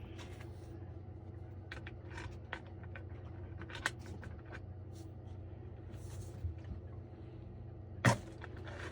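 Scattered light clicks, taps and scrapes of pliers on threaded plumbing fittings as a water pump's pipework is tightened, with one louder knock near the end.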